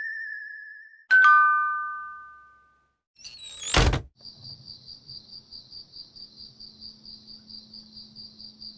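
A string of synthetic sound effects: a wavering electronic tone fades out, a bright two-note chime rings and dies away, a rising swoosh ends in a heavy thump about four seconds in, and then a high electronic pulsing of about four pulses a second runs over a low hum.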